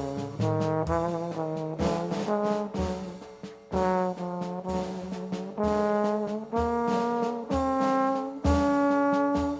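Music: a brass melody of held and short notes over a steady low beat.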